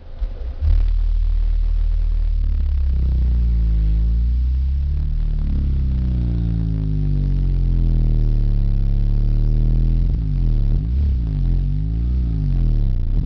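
Orion XTR Pro 12-inch car subwoofer, rated 500 W RMS, playing a bass-heavy track loud, with deep bass coming in suddenly under a second in. From about three seconds in, bass tones sweep up and down in pitch.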